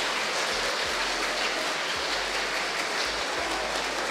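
Audience clapping steadily.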